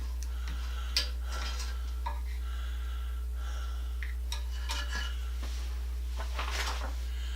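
Scattered metallic clinks and taps of small parts and tools being handled during exercise-bike assembly, the sharpest about a second in, over a steady low hum.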